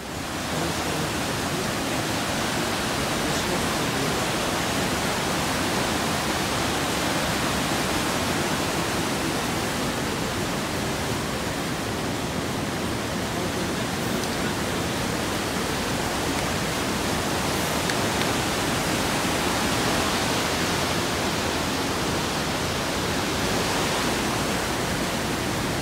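Fast mountain river rushing over rocks and boulders: a steady, even rush of water.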